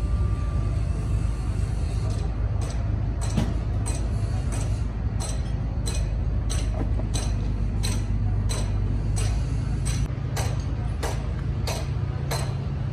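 Rebuilt Komatsu D155 dozer diesel engine running steadily with a deep rumble. From about two seconds in, a sharp click repeats evenly about every two-thirds of a second.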